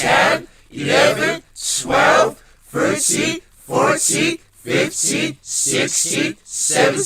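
A voice counting numbers aloud in a sing-song way, one number about every second, each with a crisp hiss on its s-sounds.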